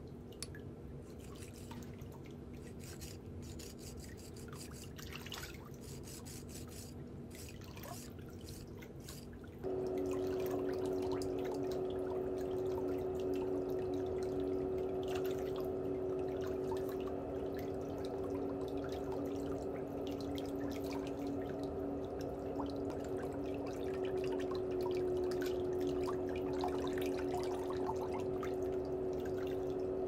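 A steady hum with a fixed low pitch, like a running motor, with scattered faint small ticks over it. About ten seconds in the hum gets suddenly louder and stronger in tone, then holds steady.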